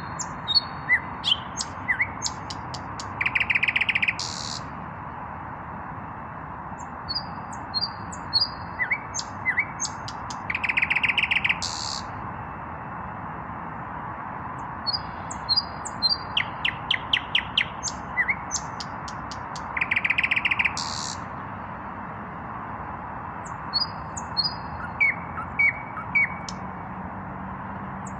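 Nightingale singing: phrases of clear high whistles and sharp clicks, each building to a loud, rapid rattling trill, about every eight or nine seconds with short pauses between.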